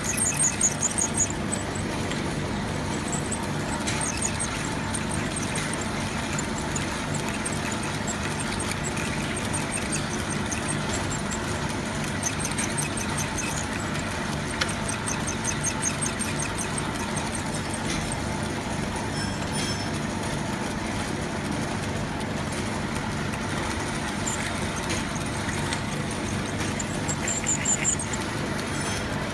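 Metal-working lathe running steadily while cutting metal, with short runs of pulsing high-pitched squeal from the tool on the workpiece, several times.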